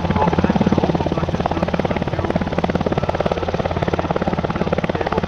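NH90 NFH twin-turbine helicopter hovering, its four-bladed main rotor beating in a rapid, steady pulse over a low engine hum.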